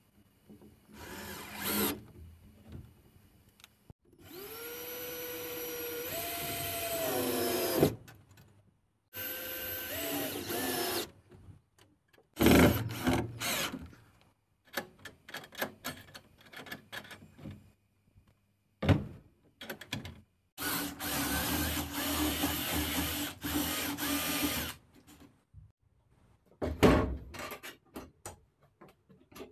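Cordless drill driving screws to fix a handle to a wooden door. It comes in several stop-start runs of a few seconds each, the longest with a whine that rises in pitch as the motor speeds up, with clicks and knocks in between.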